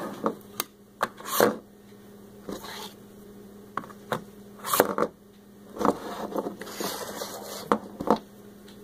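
Small hard-plastic toy pieces being handled and set down on a plastic playset and table: scattered light clicks and knocks at irregular moments.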